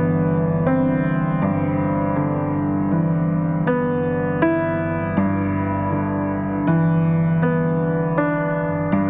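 Background music: keyboard or electric piano playing sustained chords that change about every second.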